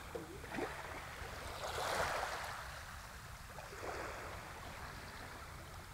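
Small waves lapping and washing along the edge of a shallow sand flat, the wash swelling about two seconds in and again briefly near four seconds.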